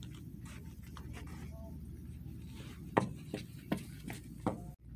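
Steady low hum of a department store's room tone. About three seconds in comes a quick run of five sharp clicks, then the sound cuts out briefly near the end.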